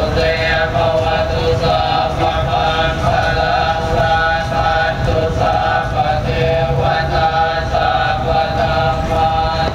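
Group Buddhist chanting: many voices reciting together in a steady drone on held notes that shift about once a second, without pause.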